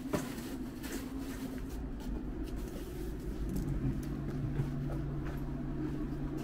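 Street ambience in a narrow residential lane: a low steady rumble with scattered light clicks of footsteps, and a steady low hum that comes in about halfway through.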